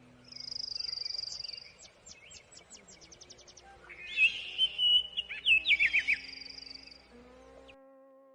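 Birds singing: a high trill lasting about a second, then a quickening run of short notes and a burst of chirping. Faint background music with held notes lies underneath and comes forward near the end.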